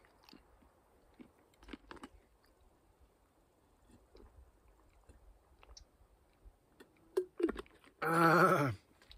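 A person's faint chewing and small mouth clicks, then about eight seconds in a loud voiced hum lasting about a second.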